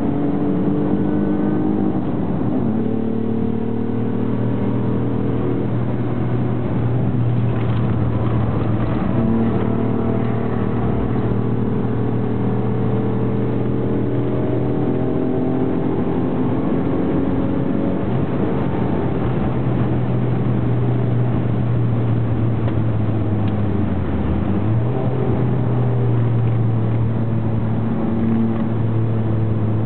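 Cabin sound of a Mk2 Ford Mondeo ST24's 2.5-litre V6, breathing through a pod filter and a full 2.5-inch exhaust with headers, running hard around a race track. The engine note holds fairly steady, with smaller rises and falls in pitch, and dips briefly then picks back up about three-quarters of the way through.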